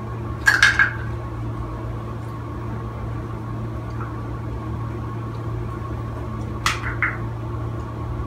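A steady low hum, with brief clicking clatters of small toys being handled about half a second in and again near seven seconds.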